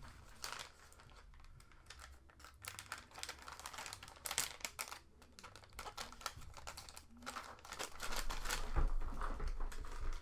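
Hands rummaging through spare computer parts in search of a RAM stick: irregular clicking and rustling of plastic and small hard parts, with louder handling bumps near the end.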